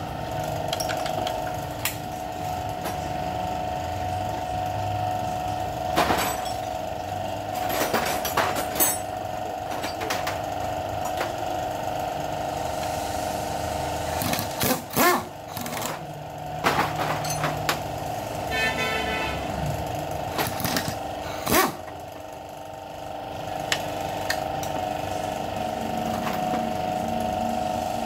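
Hand tools clinking and knocking on the metal of a car engine being dismantled, with a few sharp knocks scattered through, over a steady background hum.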